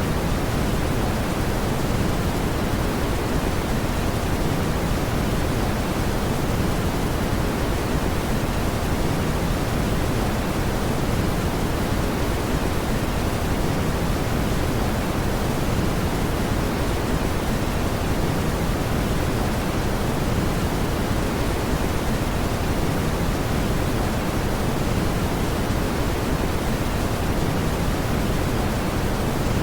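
Steady brown noise: an even, unbroken rumbling hiss, heaviest in the low range, played as a sleep and soothing sound for a colicky baby.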